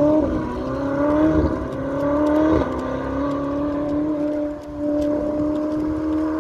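Sports car engine accelerating hard through the gears. Its note climbs and drops sharply at three quick upshifts in the first few seconds, then holds a steady high pitch.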